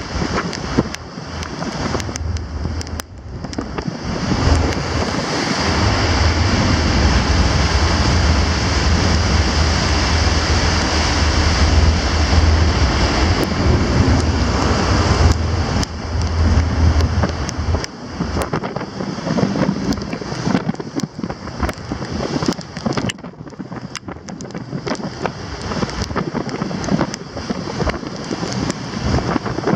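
Sea water rushing and churning along a ferry's hull in rough storm swell, with wind buffeting the microphone. A heavy low rumble of wind runs from about four seconds to about eighteen seconds in, and there are frequent short knocks and crackles after that.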